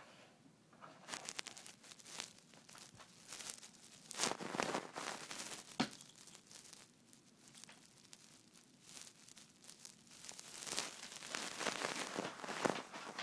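Cardboard crinkling and tearing in irregular bursts as a Thai Ridgeback puppy chews on a box, busiest about four seconds in and again over the last few seconds.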